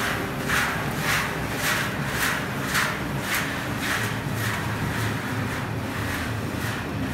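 Gas-fired rotary drum tea fixation machine running: a steady low hum with a rhythmic swish about twice a second from the turning drum, the swishes fading about five seconds in.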